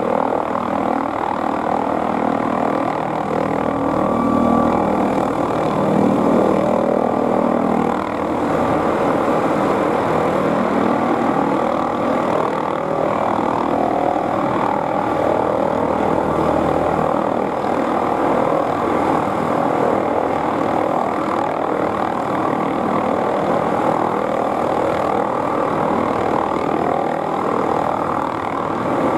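McDonnell Douglas MD520N NOTAR helicopter hovering low, its turbine engine and main rotor running loud and steady with no tail rotor. The level swells slightly a few times as it moves.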